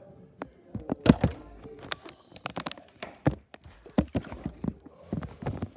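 Handling noise from a phone being gripped and moved close to its microphone: an irregular run of sharp knocks, taps and rubs, the loudest about a second in.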